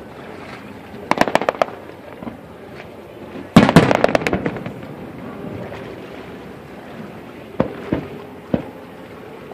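Aerial fireworks display going off. A quick cluster of crackling pops comes about a second in, then the loudest bang a few seconds in, trailed by about a second of crackling, and three single reports near the end.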